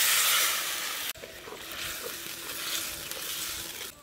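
Boiled vegetables and their cooking water poured into a wok of hot oil and fried spice paste, hissing and sizzling loudly. About a second in the hiss cuts off suddenly, leaving a softer sizzle with a steel spatula stirring the curry in the wok.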